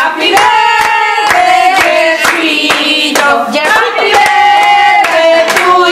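A group of people singing a birthday song together, with hand clapping in time.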